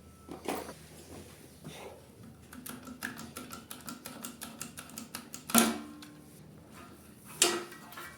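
Workshop handling of metal compressor parts and tools: scattered knocks, then a run of quick, even clicks for about three seconds, then two sharp metal clanks, the first one briefly ringing.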